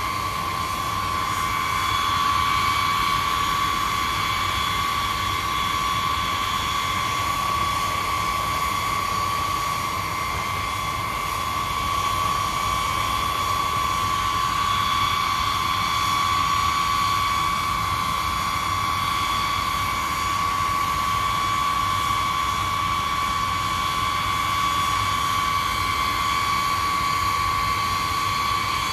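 B-52H bomber's eight Pratt & Whitney TF33 turbofan engines running at low power on the ground, a steady high-pitched jet whine over a low rumble.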